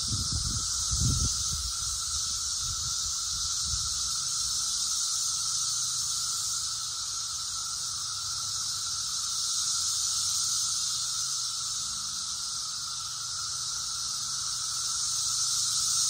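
Brood X periodical cicadas chorusing: a steady, unbroken high-pitched drone that swells slightly now and then. There are a few low thumps in the first second or so.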